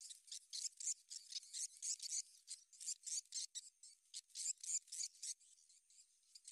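Swiftlets twittering: a dense run of rapid, high-pitched chirps, several a second and overlapping.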